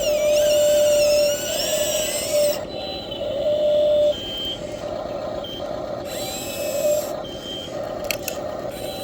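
Whine of a radio-controlled model excavator's electric motors, rising and falling in pitch as it works, over a steady tone that breaks off and resumes several times.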